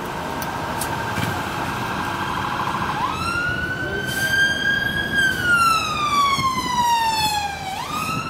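An emergency vehicle's siren wailing over road traffic noise. It wavers at first, rises sharply about three seconds in, climbs slowly, then falls slowly for a few seconds before jumping up again near the end.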